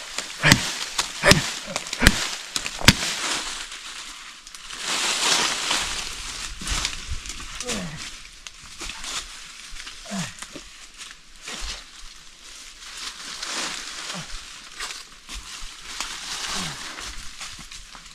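Four hard chopping strikes about a second apart, then a few short, low animal calls, each falling in pitch.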